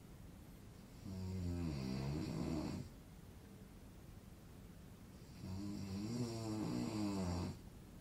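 A man snoring: two long snores about four seconds apart, each lasting around two seconds.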